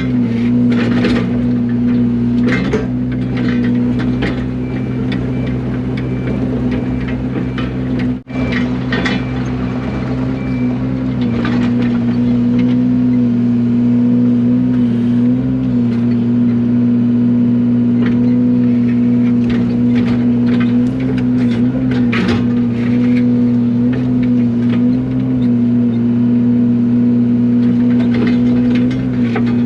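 Yanmar mini excavator's diesel engine running at a steady speed, its pitch dipping slightly now and then under load, with scattered knocks and scrapes while it works packed ground. The sound breaks off for an instant about eight seconds in.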